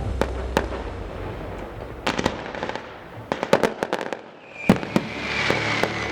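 Aerial fireworks going off: a rapid series of sharp bangs and pops, with a loud bang about three-quarters of the way through followed by a high whistle that falls slightly in pitch over a crackling hiss.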